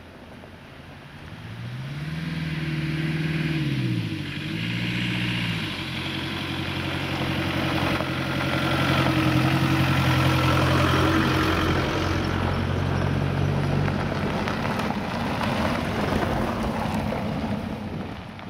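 A motor vehicle's engine revving up and back down twice, then running at a steady pitch for several seconds, with a growing rush of noise behind it.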